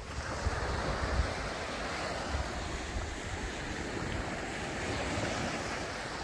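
Sea waves washing onto the beach in a steady rush, with wind buffeting the microphone.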